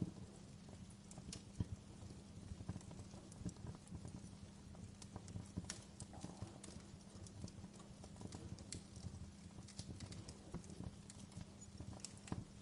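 Wood fire burning in a fireplace, crackling: irregular sharp pops and snaps over a low steady rumble, with one louder pop about a second and a half in.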